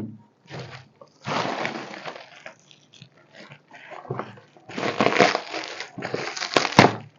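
Cardboard box and packaging being handled and rustled, in several irregular crinkling bursts, with a sharp knock near the end.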